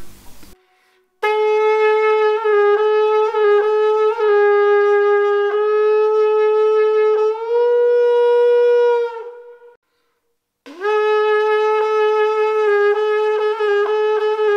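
A single wind instrument playing a slow, simple melody of held notes in a narrow range, in two phrases with a short break about ten seconds in.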